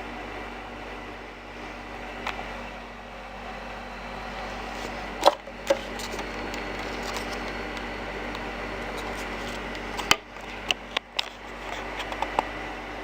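Steady hiss of static from a Bush TR82-style portable radio, with a faint hum, broken by several sharp clicks about halfway through and again near the end from handling or the controls.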